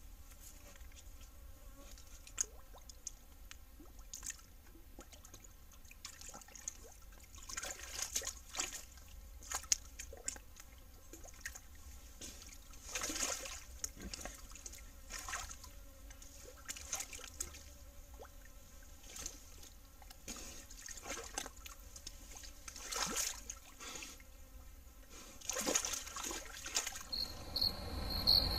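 Feral hog wallowing in a shallow muddy puddle: irregular splashing and sloshing of water, busier after the first quarter.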